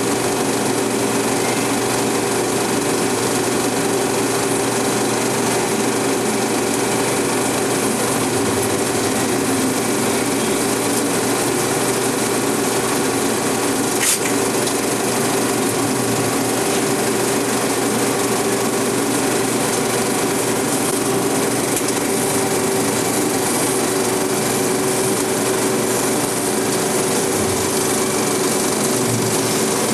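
Film projectors running in a projection booth: a steady mechanical clatter with a constant hum underneath. A single sharp click about fourteen seconds in.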